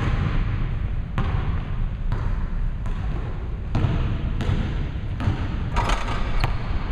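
Basketball being dribbled on a hardwood gym floor: sharp bounces, about one a second at first and coming quicker near the end.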